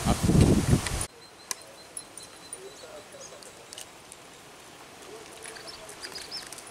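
Gusty wind buffeting the microphone, with grass rustling, cuts off suddenly about a second in. Then quiet outdoor ambience follows, with a few light clicks and faint short high chirps near the end.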